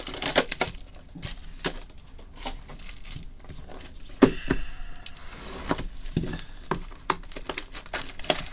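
Plastic trading-card pack wrappers crinkling and rustling as gloved hands handle them, with scattered clicks and a louder knock about four seconds in.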